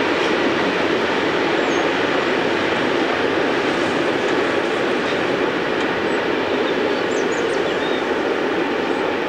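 Steam-hauled passenger train rolling across a steel truss bridge: a steady, even rumble of wheels and carriages with no distinct exhaust beat, and a few faint high chirps.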